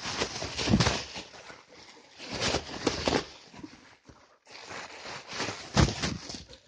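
Shiny foil gift wrap crinkling and rustling as a Groenendael (Belgian sheepdog) tears at it, in several rough bursts with a brief lull about four seconds in.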